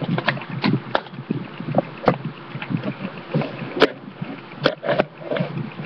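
Handling noise: irregular clicks, knocks and rubbing as small plastic storage boxes and the camera are moved about by hand, with a few sharper clacks.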